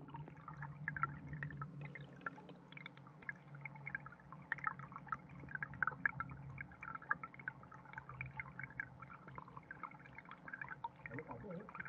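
Trickling stream water heard underwater: a dense, irregular patter of small bubble pops and gurgles over a steady low hum.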